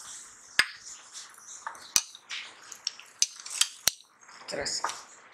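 Chopped fruit and sugar being tossed by hand in a glass bowl: soft rustling with many small ticks, and three sharp clicks against the glass, about half a second, two seconds and four seconds in.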